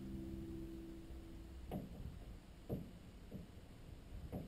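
A held soundtrack chord dies away, then three soft, short knocks of water against a canoe hull, about a second apart, each dropping quickly in pitch.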